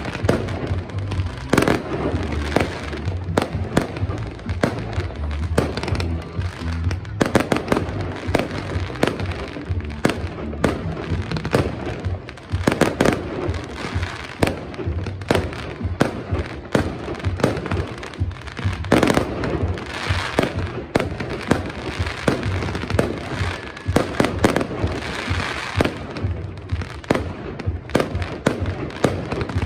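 Fireworks display: aerial shells bursting one after another in rapid, uneven bangs throughout, with music playing underneath.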